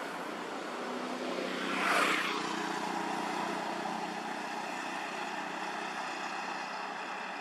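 A motor vehicle passing on the road, its sound swelling to a peak about two seconds in and then fading into a steady background hum.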